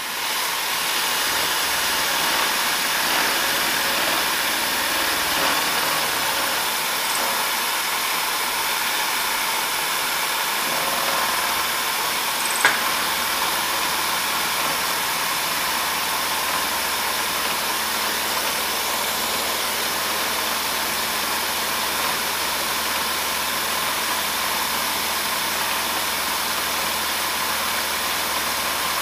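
DoAll vertical milling machine running as an end mill takes a side cut along a drill-rod part, with a steady hiss of coolant spray. A single sharp click about halfway through.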